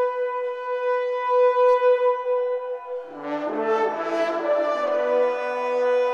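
Background score music: a single note held steadily, joined about three seconds in by several other notes, some lower, that shift for a moment and then settle into a held chord.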